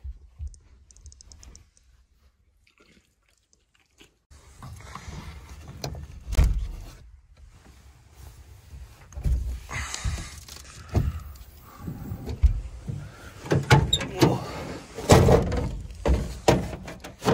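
Latch clicks, knocks and thumps of a pickup truck's camper shell rear window being unlatched and opened, then the tailgate being handled, with rustling in between. Almost silent for the first few seconds, then an uneven run of knocks that gets louder near the end.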